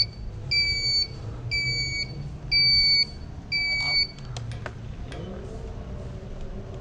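An electronic warning beeper sounds a high beep about once a second, four times, each beep about half a second long and falling slightly in pitch. The beeping stops about four seconds in, and a low hum rises near the end.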